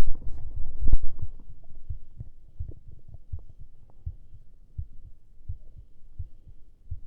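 A soda-filled stomach gurgling and fizzing, loud over the first second and then dying down. Under it a soft low thud repeats about every two-thirds of a second: the heartbeat.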